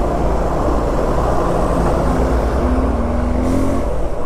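Suzuki V-Strom 250's single-cylinder engine running under a steady rush of wind and road noise while riding, its note rising slowly about halfway through as the bike speeds up past lorries.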